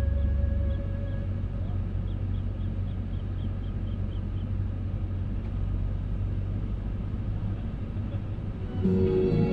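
Steady low rumble with no words. The tail of background music fades in the first second and music comes back near the end. A run of faint high chirps comes a couple of seconds in.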